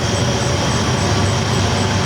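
Train rolling along the tracks: a steady low rumble with a constant hiss of running noise, and a faint high tone pulsing about four times a second.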